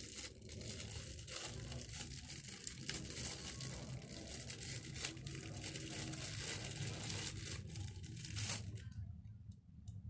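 Thin clear plastic packaging bag crinkling as it is handled and pulled open by hand. The crinkling stops about nine seconds in, leaving a few light clicks.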